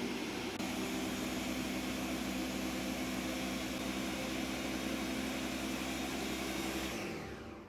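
Ninja Professional Plus blender's 1400-watt motor running at full speed, grinding soaked rice and lentils into idli batter. About seven seconds in the motor winds down with falling pitch, a pause in its automatic Auto-IQ program.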